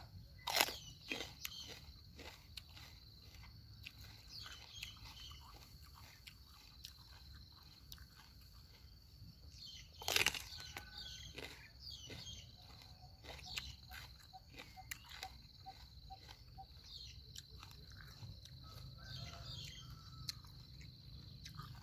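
Crisp biting and chewing of raw mini sweet snack peppers, a run of small crunches with two sharper bites, about half a second in and about ten seconds in. A steady high insect drone runs underneath.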